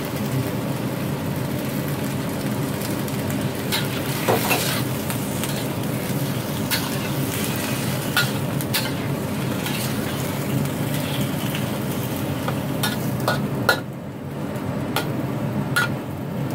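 Napa cabbage and squid stir-frying in a wok: steady sizzling, with a metal spatula and ladle scraping and clinking against the wok now and then. The sizzle dips briefly near the end.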